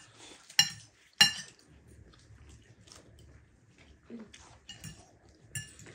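Forks clinking against ceramic plates at a meal: two sharp ringing clinks about half a second apart near the start, then quieter small clicks and eating sounds, with another clink near the end.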